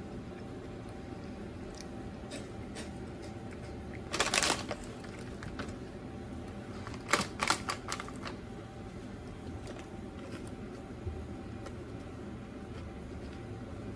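Snack packaging being handled: a brief rustle of the snack bag about four seconds in, then a few sharp clicks and taps around seven to eight seconds, over a steady low hum.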